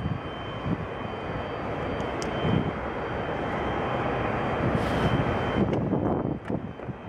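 Boeing 737-800 jet noise: a steady rushing sound with a thin high whine. The rushing swells toward the middle and drops away about six seconds in.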